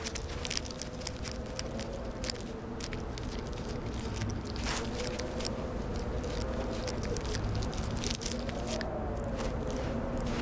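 A golden mole burrowing into loose desert sand, with a dense, irregular patter of sand grains scattering and shifting. Underneath runs a faint low tone that wavers up and down.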